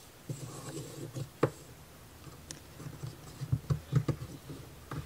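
Small laser-cut plywood gear being pressed and worked onto a wooden strip by hand: scattered light wooden clicks and scrapes, with a sharp click about a second and a half in and a cluster of louder knocks a little before the end.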